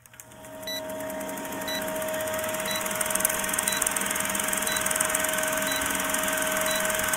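Old film countdown leader sound effect: a film projector's steady whirr and fast clatter with crackling hiss, and a short high beep once a second as the numbers count down. It stops abruptly with a click near the end.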